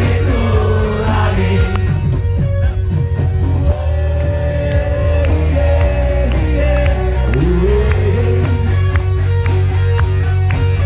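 Live rock band playing loud through PA speakers: a male singer over electric guitars, bass and drums, holding long sung notes midway and sliding up on a note about three-quarters of the way through.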